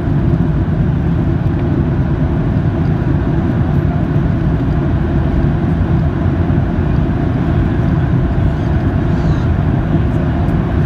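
Jet airliner cabin noise during the landing rollout: a loud, steady low rumble of the engines and the wheels rolling on the runway.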